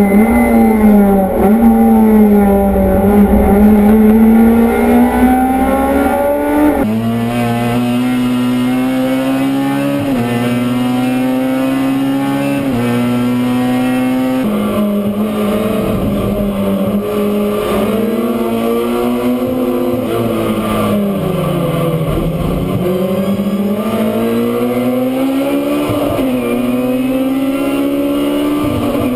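Racing touring car engines heard from inside the cockpit at full throttle. The pitch climbs through each gear and drops at every upshift, and after about 20 seconds it falls away under braking and climbs again out of the corner. The sound changes abruptly about 7 and 14 seconds in as the view switches to a different car.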